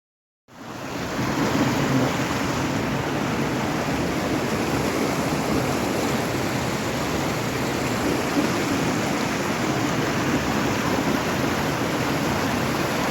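Waterfall rushing: a steady, dense roar of falling water that fades in within the first second and then holds constant.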